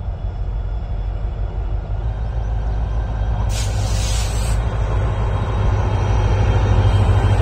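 WDP-4D diesel locomotive approaching with its train, a deep engine rumble growing steadily louder. There is a short hiss about three and a half seconds in, and another begins near the end.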